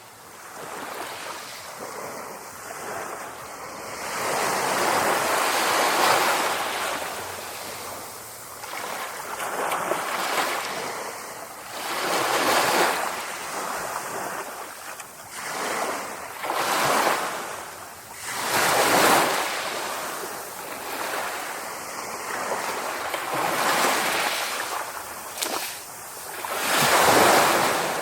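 Sea waves breaking and washing ashore, a noisy rush that swells and fades every few seconds.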